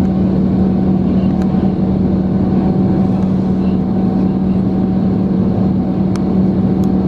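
Cabin noise of an Airbus A330-900 climbing after takeoff: its Rolls-Royce Trent 7000 turbofans running steadily with a constant low hum over rushing air, heard from inside the cabin.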